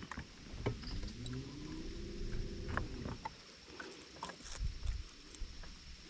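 A small motor hum that rises in pitch, holds for about a second and drops away over roughly two seconds, amid scattered light clicks and knocks.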